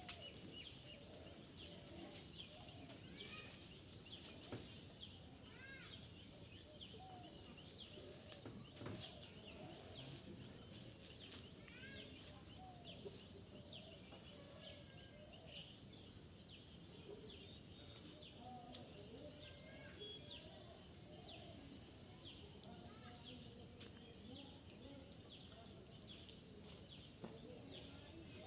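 Birds calling: a short high chirp repeated about once a second, with other scattered birdsong over faint outdoor background noise.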